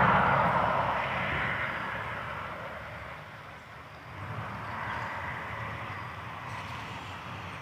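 Road traffic noise: a vehicle passes and fades away over a few seconds, leaving a fainter steady rush of traffic with a low hum beneath.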